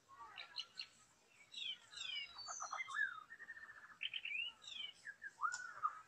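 White-rumped shama singing: a varied run of clear whistled phrases that slur up and down, with a quick trill about halfway through.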